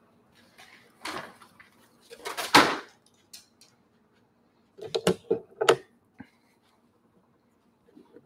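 Handling noise as painting tools are gathered: rustling about one second in and again, louder, around two to three seconds in, then a quick run of clicks and knocks about five seconds in.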